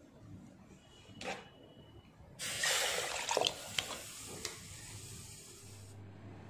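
Water poured from a bowl into a pressure cooker pot of rice and masala: a steady splashing pour starting a little over two seconds in and lasting about three and a half seconds. A single light knock comes about a second in.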